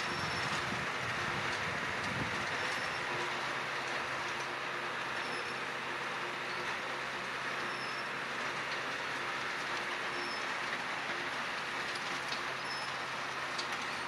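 Farm tractor at a distance working a tilled field, its engine running steadily in a continuous even hum. A few short high chirps sound faintly over it.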